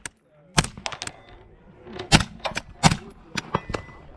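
Rifle shots fired at an uneven pace, about half a dozen sharp cracks, some louder than others, from a Desert Tech MDRX rifle.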